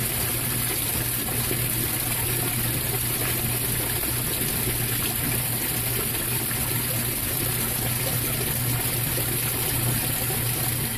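Estate Whirlpool washing machine filling with water through its newly replaced inlet valve on the warm setting, running the hot side first: a steady rush of water into the tub with a steady low hum.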